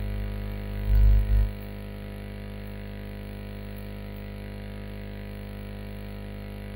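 Steady background music, with a short low thump about a second in.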